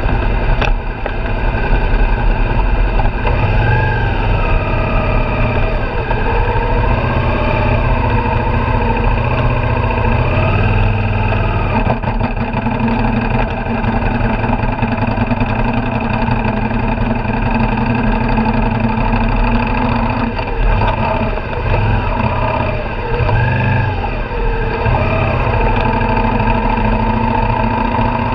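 Suzuki V-Strom 650XT's V-twin engine running steadily at low speed, heard from on the bike, with the revs rising and easing a few times.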